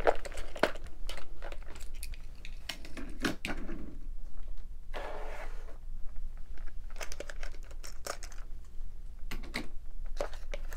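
Plastic toys and packaging being handled at close range: scattered light clicks and knocks, with some crinkling and rustling.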